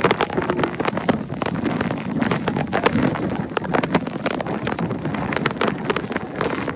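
Hurricane eyewall winds buffeting the microphone: loud, continuous gusting roar with rapid crackles and pops.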